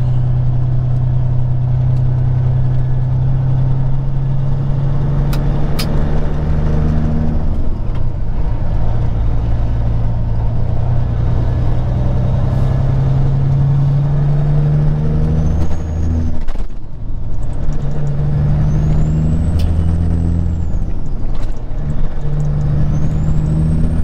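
Peterbilt 379 semi truck's diesel engine pulling up to highway speed, its note climbing and then dropping back at gear changes about a third and about two-thirds of the way in.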